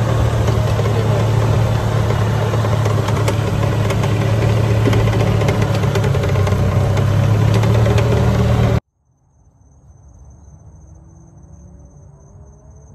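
Steady rumble and hum of a golf cart being driven, heard from on board, with a wash of noise over it. It cuts off abruptly about nine seconds in, leaving a much quieter outdoor background with faint rising chirps.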